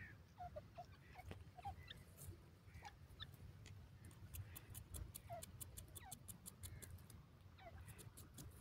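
Quiet, with faint, scattered short bird chirps and little falling notes. A quick run of faint high ticks comes in the middle and again near the end.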